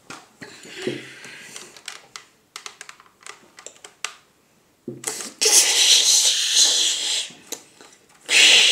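Quick plastic clicks and rattles from a toy blaster being handled, then a loud rushing, rustling noise lasting about two seconds, and a shorter one near the end.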